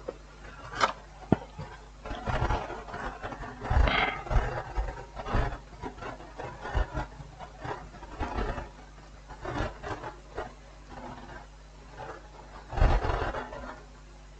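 Irregular small clicks, taps and short scraping and rubbing sounds of hand work on an electronics board while its faulty push-button switches are being replaced.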